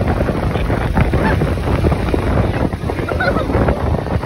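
Wind buffeting the microphone on a moving scooter, a loud, steady rush, with faint laughter breaking through now and then.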